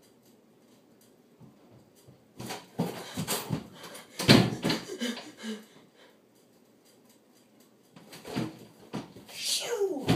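A boy coming back into a small bedroom: scuffling and knocks, with a loud thump about four seconds in, then short vocal sounds, and near the end a voice sliding down in pitch.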